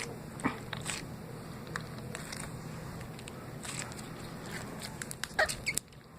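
Slime mixed with Orbeez water beads being squeezed and handled, giving scattered wet crackles and clicks, the loudest with a short squeak about five seconds in.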